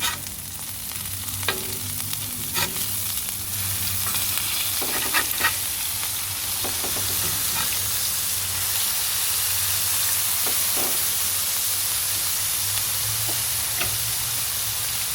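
Smash burger patties sizzling steadily as they fry. A few sharp scrapes and knocks of a spatula come in the first several seconds, as the patties are flipped.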